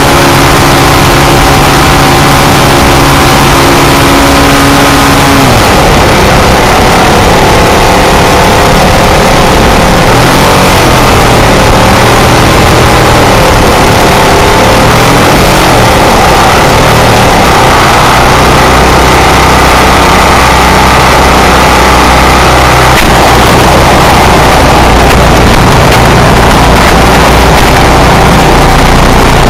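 Propeller engine of an RC model clipped-wing Cub, very loud right beside a camera on its landing gear. It runs high, then drops in pitch about five seconds in as the throttle comes back, and keeps changing speed through the descent to landing.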